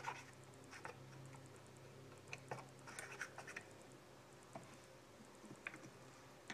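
Faint, scattered scraping strokes as a tool scrapes thick caked-on grime off a chainsaw, over a low steady hum.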